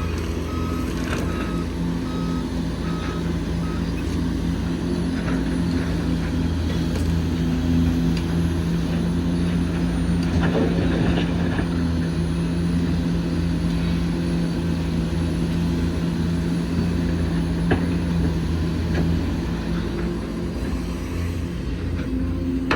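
Heavy diesel engines of an excavator and dump truck running steadily. A reversing beeper sounds about twice a second for the first few seconds, and there is scattered clatter around the middle.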